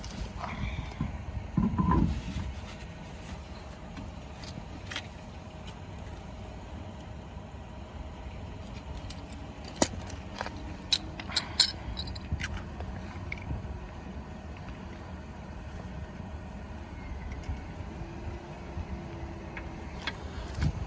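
Steady low rumble of an idling vehicle engine, with a heavy thud about two seconds in and a cluster of sharp metallic clinks around ten to twelve seconds: the knocks and clinks of tools and parts during a roadside flat-tire change.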